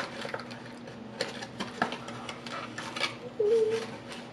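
A cardboard burger box being opened and a paper burger wrapper handled: scattered crinkles, rustles and small clicks. A short hummed voice sound comes about three and a half seconds in.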